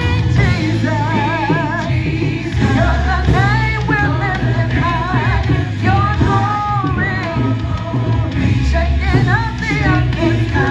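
Live gospel praise music: a singer with heavy vibrato over a full band with bass and drums.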